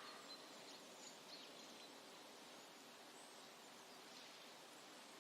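Near silence: faint outdoor ambience with a few faint, high bird chirps in the first second or so and again around four seconds in.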